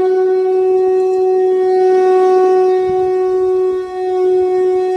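Conch shell (shankha) blown in one long, steady note with a brief dip in loudness near the end.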